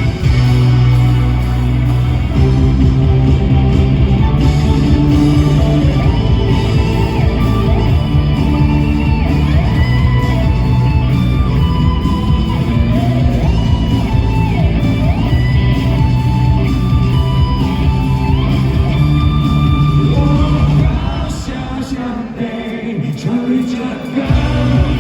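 Live rock band playing with lead vocals singing. The bass and drums drop away and the music gets quieter for a few seconds near the end, then the full band comes back in.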